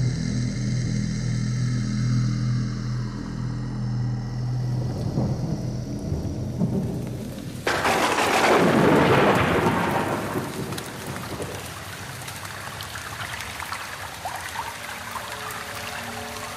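Thunder and rain sound effects on a show soundtrack: a low steady drone, then a sudden loud thunderclap about halfway through that falls in pitch and fades into a patter like rain.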